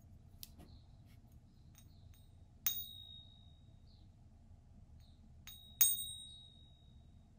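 American Silver Eagle coins being pinged: a coin balanced on a fingertip is struck with another coin twice, about three seconds apart, and each strike gives a clear high ring that lasts about a second. A long ring like this is what is listened for as the sign of real silver. Faint clicks of the coins being handled come before the strikes.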